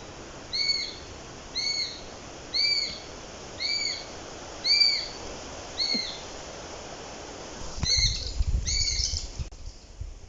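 Eurasian sparrowhawk calling: a steady series of six clear, arched calls about one a second, then a quicker cluster of calls near the end over a low rumble.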